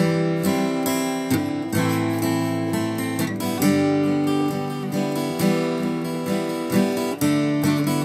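Acoustic guitar strummed in a steady rhythm, with several chord changes and no singing.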